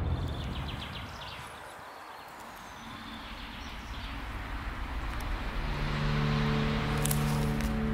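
Steady rushing noise like distant traffic that fades and then swells again, with a low held chord of steady notes coming in past the middle.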